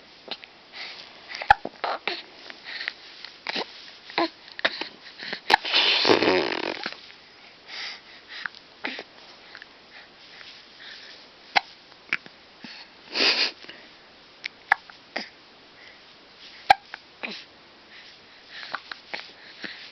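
Baby hiccupping: short, sharp catches of breath at irregular spacing, mixed with small mouth clicks, and a longer breathy burst about six seconds in.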